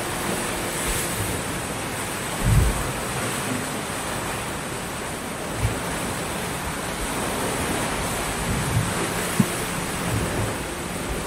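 Small sea waves breaking and washing up a sandy beach: a steady surf hiss, with a few short low thumps, the loudest about two and a half seconds in.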